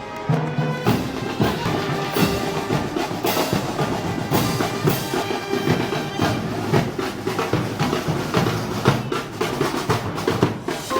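Festival band music led by drums: snare and bass drum playing a dense, driving beat with other instruments beneath.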